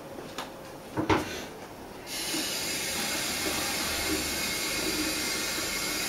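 A sharp click about a second in, then a steady hiss that starts abruptly about two seconds in.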